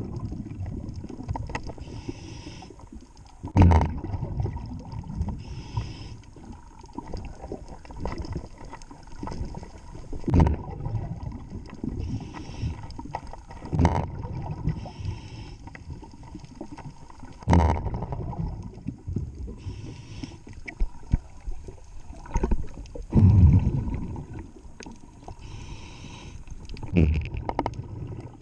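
Scuba diver breathing underwater through a regulator: a hiss on each inhale, then a low rumbling rush of exhaust bubbles, repeating every three to six seconds.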